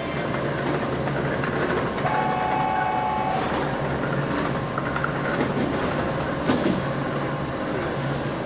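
Hokushin Line 7000-series electric train standing at an underground platform, its equipment giving a steady low hum under station reverberation. A short steady tone sounds about two seconds in, and there are brief sharp clicks near three and a half and six and a half seconds.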